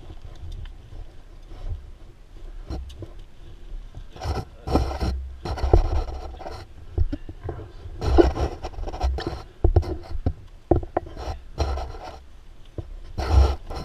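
Thick mud being scraped and pulled by gloved hands from a KTM dirt bike's front wheel, which is packed solid with mud. It comes in irregular bursts of scraping and rubbing, heaviest about five, eight and thirteen seconds in.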